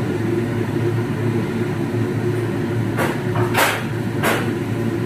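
Steady mechanical hum and rush from a commercial kitchen's exhaust hood and gas burner under a large aluminium pot of rice at a rolling boil. Three short sharp sounds come about three to four seconds in.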